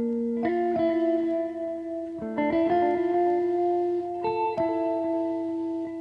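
Background music: slow, ringing guitar notes, with new notes struck every second or so.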